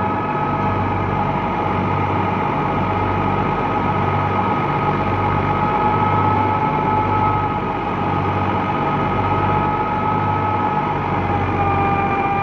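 A New Holland 480 tractor's diesel engine running steadily under load while it drives a wheat thresher through belts and pulleys. The low engine hum pulses evenly, and over it is a steady high whine of two tones that dips slightly near the end.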